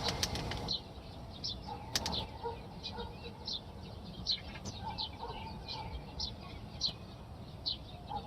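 A small bird chirping over and over, short high notes about twice a second, over a steady low rumble of wind on the microphone. A couple of sharp clicks sound near the start and about two seconds in.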